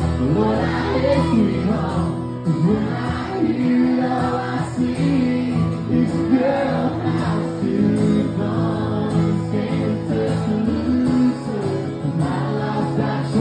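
Live country song: a man singing with two acoustic guitars, amplified through a PA.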